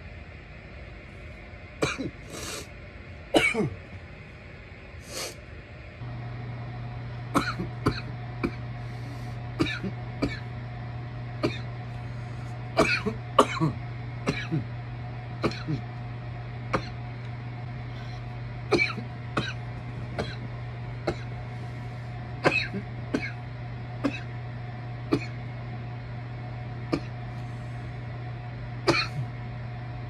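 A person coughing again and again from bong smoke, in short sudden coughs that sometimes come in quick clusters, with throat clearing. About six seconds in, a steady low hum starts behind the coughs and continues.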